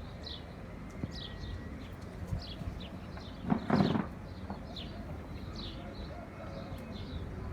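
Many young chicks peeping: short, high, downward-slurred cheeps repeating throughout. About three and a half seconds in, a brief louder, lower sound cuts across them.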